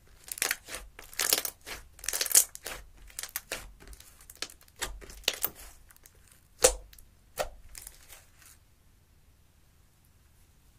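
Thick gold slime squeezed and folded by hand, giving a quick, uneven run of crackles and sticky pops that stops about eight and a half seconds in.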